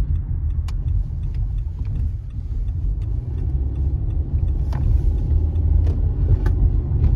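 A car being driven at road speed: steady low rumble of tyres and engine, with a few faint clicks.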